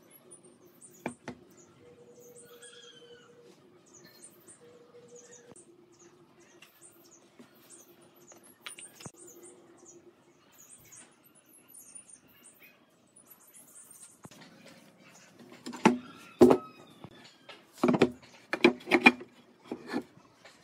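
Faint bird chirps over a quiet workshop, then, from about three-quarters of the way in, a series of loud sharp knocks as pine boards are handled and set onto steel pipe clamps.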